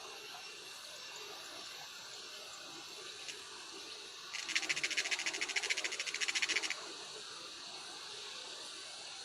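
A high, rapid, evenly pulsed buzzing trill from a small animal, lasting a little over two seconds midway through, over a steady high background hiss.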